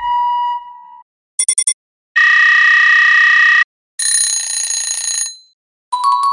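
A run of separate electronic alarm sound effects with short silent gaps: a fading tone, four quick beeps, a steady buzzer lasting about a second and a half, a brighter ringing tone, then another fading tone near the end.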